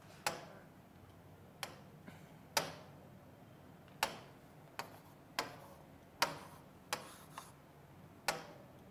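Stylus tapping and writing on the glass of an interactive touchscreen display: about ten sharp, irregular clicks as the pen tip touches down.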